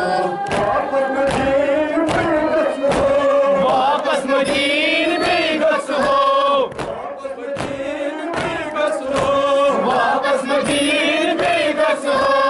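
A crowd of men chanting a Kashmiri noha together, with rhythmic open-hand chest-beating (matam) slaps about twice a second.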